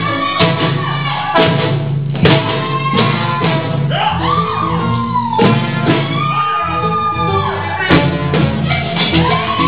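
Salsa music playing loudly: a singing voice over percussion and bass, with sharp percussion hits standing out several times.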